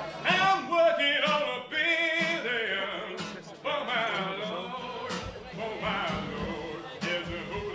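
Background music with a singing voice, its notes wavering up and down.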